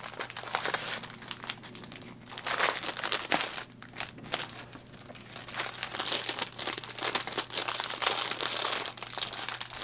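Clear plastic packaging crinkling as it is handled and opened, with a quieter lull about four seconds in.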